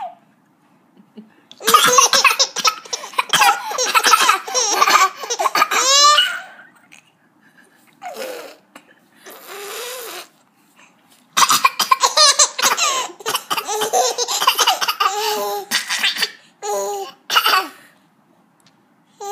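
A baby laughing in two long runs of giggles, with a short noisy cough between them, about halfway through, that sets off the second run; a few shorter laughs follow near the end.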